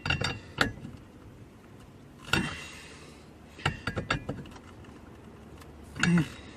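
Scattered clicks and knocks of hand work on a car steering wheel and its parts, with a short rustling burst about two seconds in.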